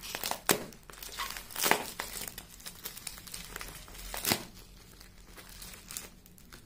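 Plastic bubble wrap crinkling and crackling as a small knife cuts and pulls it open, in irregular sharp crackles, the loudest about four seconds in and quieter near the end.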